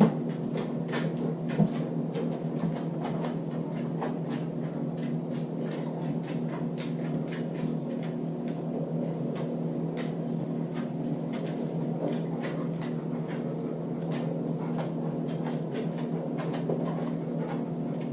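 A dog working at a fridge door: light clicks and taps scattered throughout, with a sharper knock about a second and a half in, over a steady low hum.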